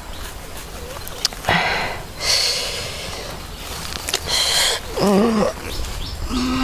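A man waking and stretching: three breathy sighs or sniffs, then near the end a short wavering groan and a longer groan that falls slightly in pitch.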